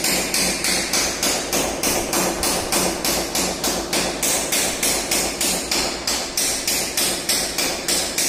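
Hammer blows in a steady, even rhythm, about three a second, each a sharp tap.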